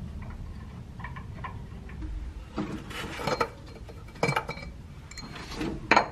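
A few light clicks and clinks of small car parts being handled, scattered a second or so apart, over a low steady hum.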